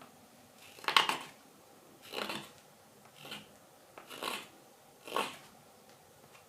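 Carving knife taking five slicing cuts through green wild cherry wood, each a short rasping shave about a second apart, the first the loudest.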